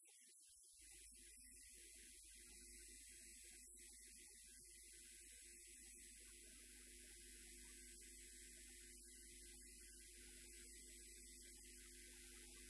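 Faint, steady low hum that starts about a second in and holds evenly.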